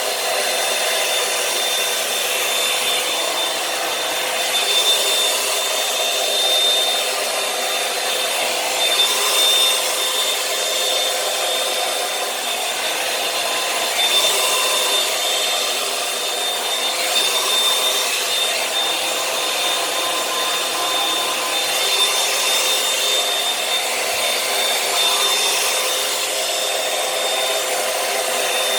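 Revlon One-Step hair dryer brush running steadily, a constant rush of air with a high whine, swelling slightly in level now and then.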